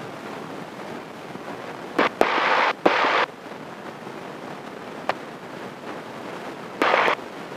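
Steady engine and propeller noise of a Cessna taxiing, heard in the cabin. It is broken three times by short, loud bursts of static-like hiss that start and stop abruptly, about two, three and seven seconds in, with a few sharp clicks between them.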